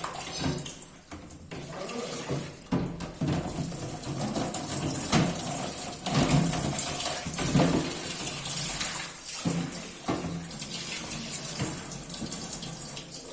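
Tap water running and splashing during hand-washing of a refrigerator, with occasional knocks from handling.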